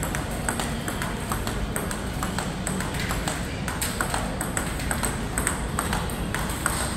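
Table tennis ball clicking off rubber paddles and the table in quick, repeated sharp ticks during forehand hitting, over a steady hall hum.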